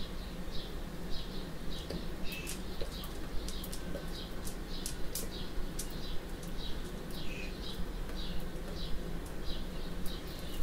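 Small birds chirping, short high chirps repeating about twice a second, with scattered sharp ticks and a steady low hum underneath.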